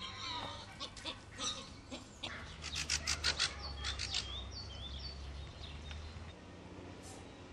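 Great tit calling: a rapid run of sharp chirps about three seconds in, followed by short whistled notes.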